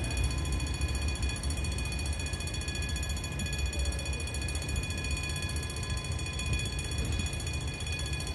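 OSPA Saxby-type level-crossing warning bells ringing continuously with a rapid, trilling strike, while the crossing is active. A low rumble of road traffic lies underneath.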